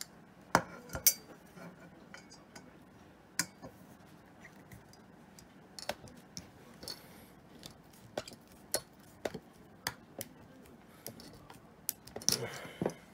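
Small metallic clicks and clinks as a screwdriver works the centre screw on the back of a round chrome motorcycle mirror, tightening the mirror head onto its stalk. The taps are irregular and spaced out, with the sharpest ones about half a second and a second in and a small cluster near the end.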